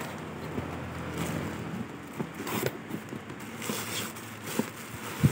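Irregular handling noises, short scrapes and clicks, over a steady low hum.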